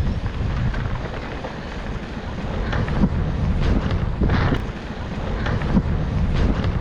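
Wind buffeting the microphone of a camera carried on a mountain bike while riding, a steady low rumble with a few sharp knocks from the ride over rough trail.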